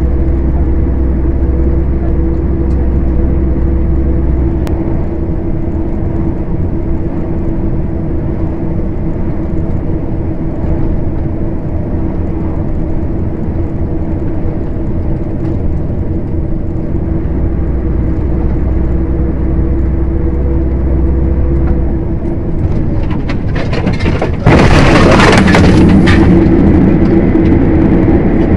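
Steady engine drone and road rumble inside a moving truck's cab, picked up by a dashcam. About 24 seconds in the sound suddenly gets louder, with a harsh rushing noise for a second or two before the louder drone carries on.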